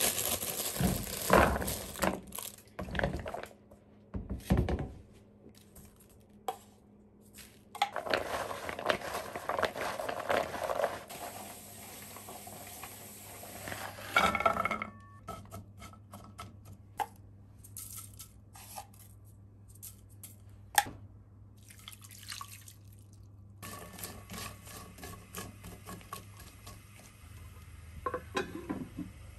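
Kitchen prep sounds: knocks of a ceramic bowl being handled, a stretch of rustling, then raw edamame pods tipped from a bowl into a frying pan with a clatter about halfway through, followed by light ticking in the pan as it heats under a glass lid.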